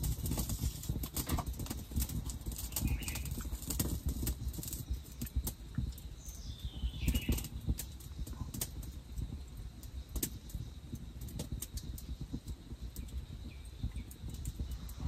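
Small wood campfire crackling with irregular sharp pops over a steady low rumble. A short call with a falling pitch, like a bird's, comes about seven seconds in.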